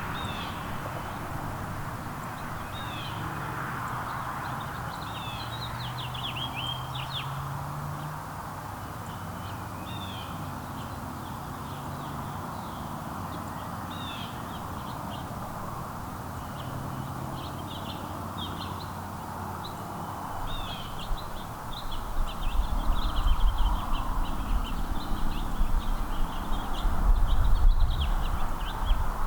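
Small songbirds giving many short, high chirps over a steady outdoor background. About three quarters of the way through, a low rumbling noise comes in and gets louder.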